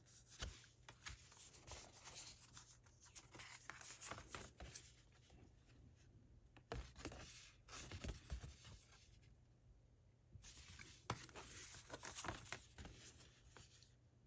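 Faint rustling and light taps of thick paper art cards handled and turned over in the hands.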